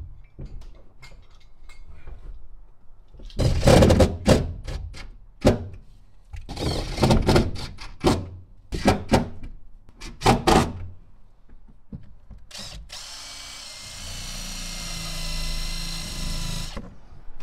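Cordless drill driving 10 mm bolts into the amplifier bracket in several short bursts. About 13 seconds in, a wire brush spun by a cordless tool runs steadily with a whine, scrubbing the cab's sheet metal down to bare metal for the amplifier ground.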